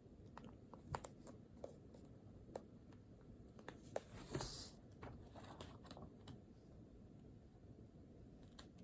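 Faint scratching and light ticks of a pen writing on paper, with a brief scratchy stroke about four and a half seconds in.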